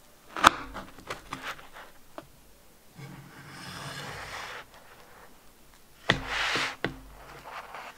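Kitchen knife cutting a no-bake cheesecake down through its crumbly cookie base onto a wooden board: a sharp knock about half a second in followed by a few light taps, a rasping scrape in the middle, then two more knocks with a scrape near the end.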